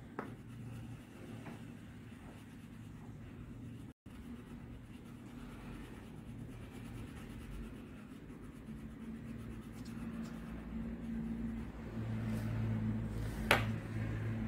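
Red crayon scribbling on paper, colouring in a small flower, over a low steady hum. A sharp click comes about a second before the end.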